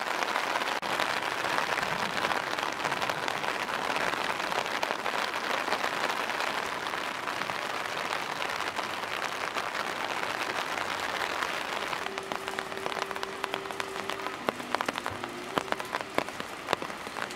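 Steady rain falling, a dense hiss of many drops. A few faint held tones come in over it near the end.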